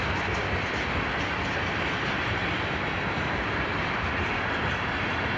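Freight train of tank cars rolling past: steady noise of steel wheels on the rails, with light clicking.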